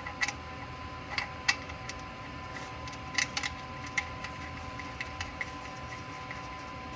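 Scattered light metallic clicks and taps as the oil drain plug and its washer are put back into the oil pan by hand and the socket is fitted, over a faint steady hum.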